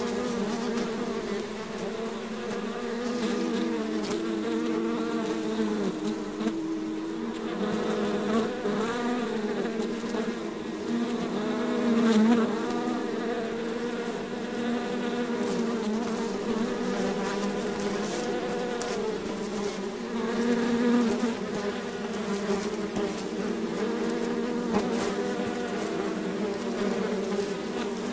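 A swarm of honeybees buzzing: a steady drone of many overlapping wingbeat tones that waver in pitch. It swells louder briefly about midway and again later on.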